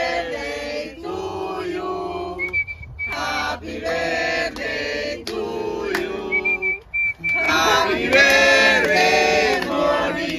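A group of people singing together, with a steady high whistled tone coming in twice.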